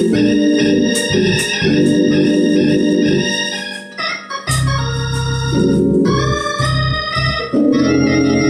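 Two-manual drawbar console organ played with both hands: sustained chords change every second or so, and a low bass part comes in about halfway through.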